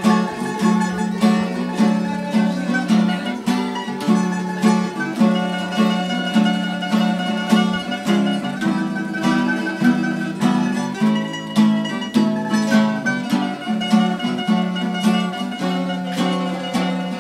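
Small tamburitza ensemble playing an instrumental tune: plucked tamburas carry the melody in higher notes over strummed chords, on a steady beat.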